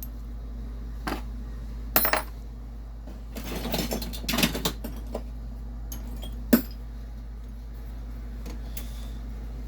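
Small steel tap-and-die pieces clinking against each other and against other metal tools as they are picked through: a few light clinks, a busier run of rattling clinks around the middle, and one sharp clink near two-thirds of the way through. A steady low hum runs underneath.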